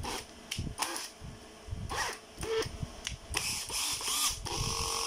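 A few clicks and knocks as a cordless drill is handled, then about three seconds in the National EZ6901 12 V cordless drill's motor starts, stops for a moment and runs on steadily at a constant speed near the end.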